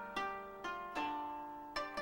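Koto being plucked: a few separate notes about half a second apart, each ringing and fading before the next.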